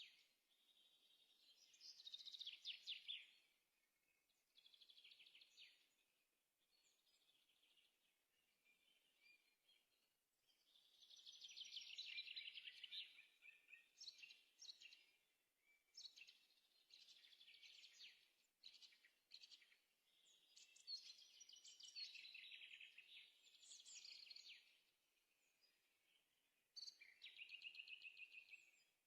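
Faint birdsong: small birds singing in short, rapid trilled phrases and chirps, one after another every few seconds.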